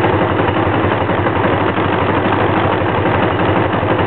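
1984 Honda Magna V65's V4 engine idling steadily while still cold, running on extra choke. This is a hard-starting engine that stalls when given gas.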